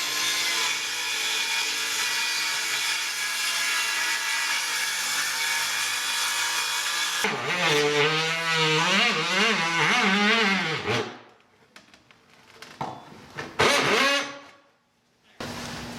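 A power tool working wood, running steadily for about seven seconds, then wavering up and down in pitch until it stops about eleven seconds in; a few short bursts of noise follow.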